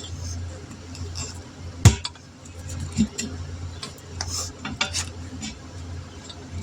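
Light metallic clicks and clinks of tools and parts being handled during a tire repair, with one sharp knock about two seconds in, over a steady low hum.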